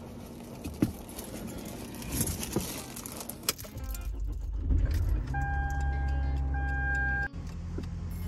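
Car keys jangle and rattle with rustling as the driver settles in. About four seconds in, the car's engine starts and runs at a steady low idle. A steady high electronic tone sounds for about two seconds over it.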